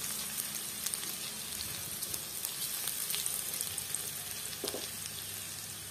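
Chopped onion frying in oil in a metal kadai: a steady sizzle with scattered small pops.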